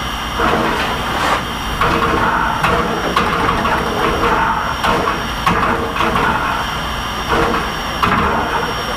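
VR Class Hr1 steam locomotive standing with steam up: a steady hiss with irregular pulsing mechanical strokes, roughly one a second.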